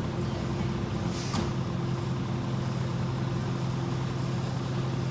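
Mack LE garbage truck's diesel engine idling steadily, with a short burst of air hiss from the truck's air system about a second in.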